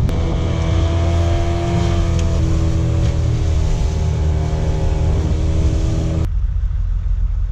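Small boat's outboard motor running under way, a steady low rumble with an engine tone that drifts slightly in pitch. About six seconds in, the higher tones cut off suddenly, leaving only the low rumble.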